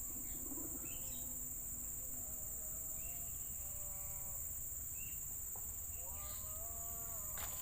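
Rainforest insects droning steadily at two high pitches, with short bird-like chirps. A few drawn-out pitched calls with overtones come in the middle and again near the end, and a sharp click sounds just before the end.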